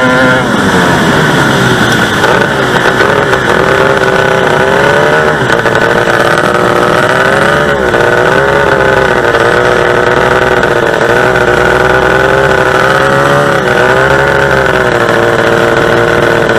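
Two-stroke racing-boat engine running hard at high revs. Its pitch drops about half a second in, then holds high, wavering up and down by small amounts.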